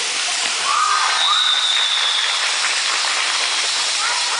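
Steady hiss of ambient noise from a futsal game in progress, with a couple of short shouts from players about a second in, followed by a thin high tone lasting about a second.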